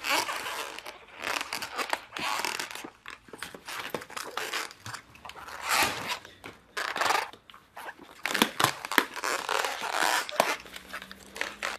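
A latex condom being handled and twisted like a balloon animal: irregular bursts of rubbery rubbing and stretching, with a few short squeaks.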